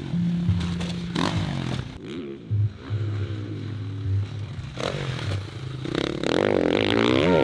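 Motocross dirt bike engine revving up and down through the gears as it jumps and corners. The revs climb loudest near the end.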